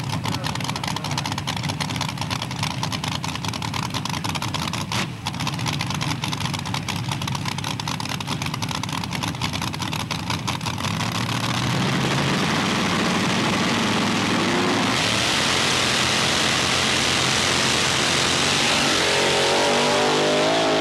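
Drag-racing engines at the starting line, the dragster's injected engine idling with a rapid, lumpy pulse. About twelve seconds in they rev up, rising in pitch, and from about fifteen seconds the cars launch and run at full throttle down the strip, much louder.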